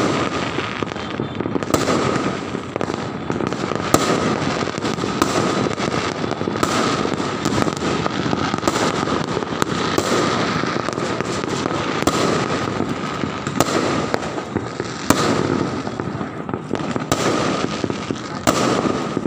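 Fireworks going off continuously: a dense crackling and popping, with louder sharp bangs every second or two.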